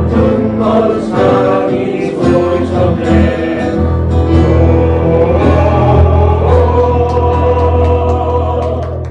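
Men's choir singing a Korean worship song over band accompaniment with steady bass and drums.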